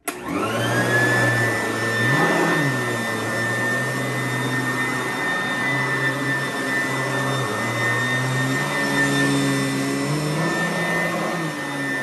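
Sanitaire upright vacuum cleaner switched on: the motor starts suddenly and spins up within about half a second to a steady high whine, then runs as it is pushed over carpet, with a lower hum that shifts in pitch now and then.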